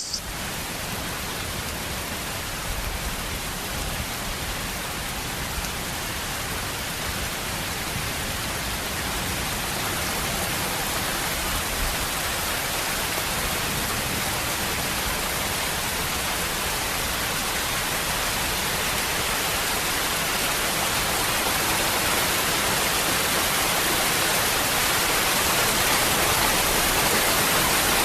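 Waterfall: water falling in a steady, even rush that grows slowly louder.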